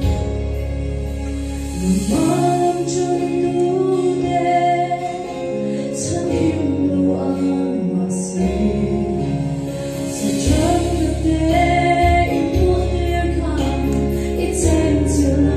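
A woman singing a Mizo gospel song into a microphone over instrumental accompaniment. Her voice comes in about two seconds in, after a short instrumental passage.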